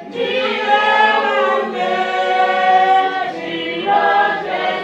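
Church congregation singing a hymn together in several voices without instruments, on long held notes.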